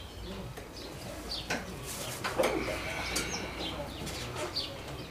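Hand-tool work on a motorcycle's rocker box bolts: scattered metallic clicks and a clunk about two and a half seconds in, with birds chirping in short, repeated calls in the background.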